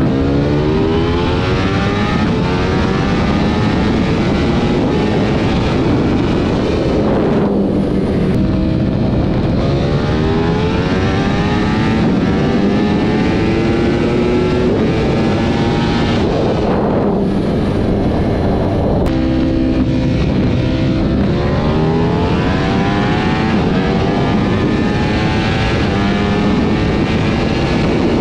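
Race-tuned Ducati Panigale V4 S's V4 engine at full throttle, revving up through the gears: its pitch climbs, drops sharply at an upshift about 8 seconds in and again about 17 seconds in, then climbs again, with heavy wind rush building as speed rises.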